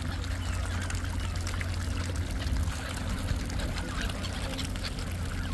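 Water splashing and trickling as a flock of mute swans dabble and feed at the surface, over a steady low rumble.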